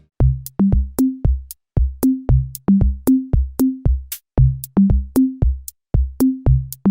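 Background music: a steady electronic drum beat of short, low pitched drum hits, about three a second, with no melody or voice.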